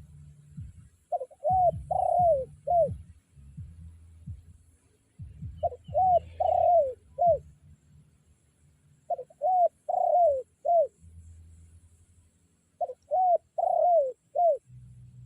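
Decoy spotted dove cooing its territorial call, four phrases of four short arching notes each, the third note longer, repeated about every three and a half seconds. A low rumble runs underneath.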